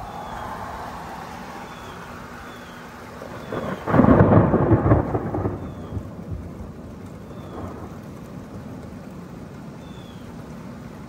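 Thunder: a loud peal breaks about four seconds in, rumbles for a couple of seconds and fades, with a weaker after-rumble shortly after. Under it runs a steady hiss of rain.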